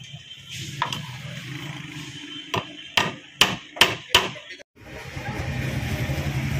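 Small hammer driving thin nails into a wooden board: about six sharp metal-on-nail strikes, four of them in quick succession around three to four seconds in. After a brief cut-out near the end, a steady low hum.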